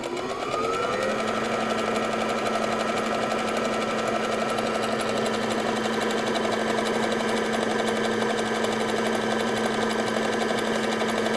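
Brother computerised sewing machine running fast and steadily while sewing an overlock stitch along a fabric edge. Its motor whine rises as it speeds up over about the first second.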